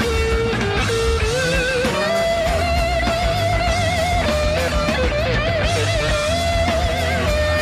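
Live 1970s hard rock: an electric guitar lead holds long, wavering notes with wide vibrato over the band's bass and drums.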